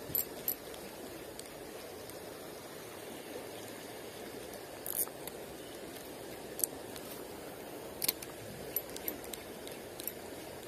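A shallow river flowing steadily, with scattered sharp metallic clicks from a Shimano Cardiff Ci4+ spinning reel as its bail and handle are worked during a cast and retrieve: three at the start, one about halfway, and several more near the end.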